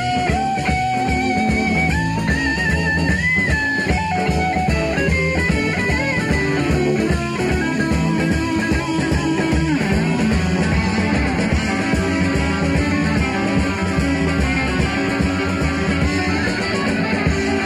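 Live southern rock band recording: electric guitars over bass and drums.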